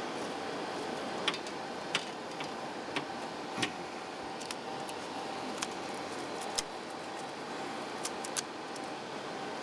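Scattered sharp metallic clicks and snaps of film and pad-roller keepers being handled on a 35mm Cinemeccanica Victoria 8 projector as it is laced up, over a steady mechanical hum.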